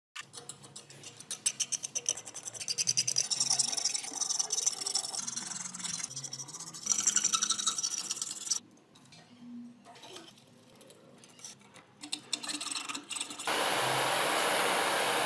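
Rust being rubbed off metal scale parts by hand: quick, repeated scraping strokes like sanding or filing, several a second, easing off about two thirds of the way through. Near the end a steady, even hiss starts.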